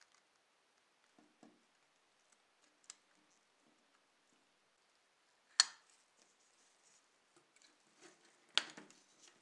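Small plastic parts of a Dodge Viper SRT-10 ACR model car handled and pressed together by gloved fingers: faint ticks and rustles, with a sharp click about halfway through and another near the end as parts snap into place.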